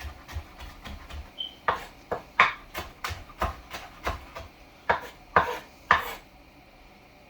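Knife chopping parsley on a wooden cutting board: irregular knocks about twice a second, stopping about six seconds in.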